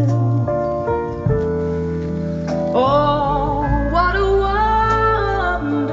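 Music played through a car's sound-quality audio system: held instrument notes over a deep bass line, then a singing voice with vibrato comes in about three seconds in.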